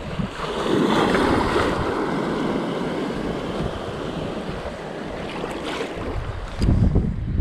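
Sea waves breaking and washing around a wader, with a wave swelling and breaking about a second in, then continuing surf wash. A low rumble near the end.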